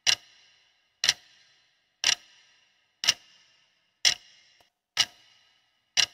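Clock-tick sound effect for a quiz countdown timer: one sharp tick each second, each with a short fading ring, about seven in all.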